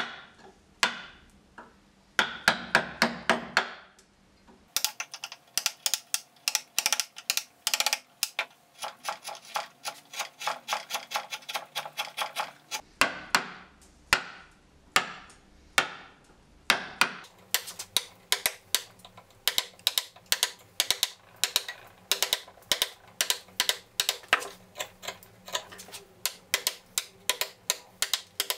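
Carving gouge driven into a block of wood in quick repeated strokes: a series of sharp taps and snicks, several a second, as chips are cut away. Late in the stretch it is cutting end grain.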